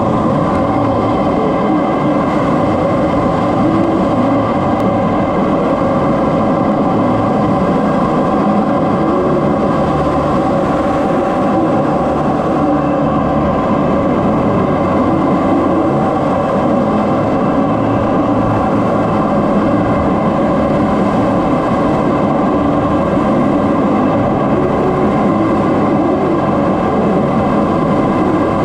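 Steady cockpit noise of a CT-114 Tutor jet in level flight: its turbojet engine running at a constant pitch, with airflow over the canopy and several steady whining tones, heard from inside the cockpit.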